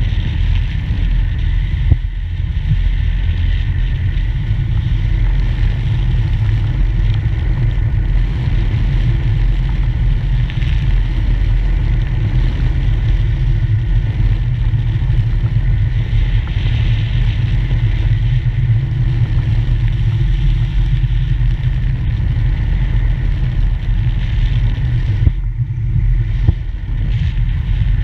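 Wind rushing over the microphone of a camera riding with a parasail, a steady low rumble, with a brief knock about two seconds in.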